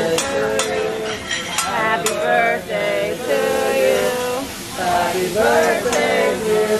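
Food sizzling on a hibachi's flat steel griddle, with several sharp clanks of metal spatulas on the griddle in the first two seconds, over loud background voices and singing.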